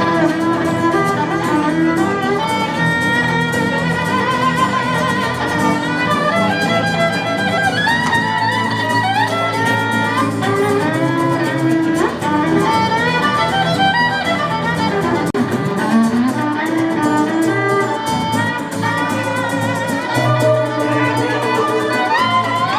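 Instrumental break in a song: a violin plays the melody with slides between notes, over a strummed guitar accompaniment.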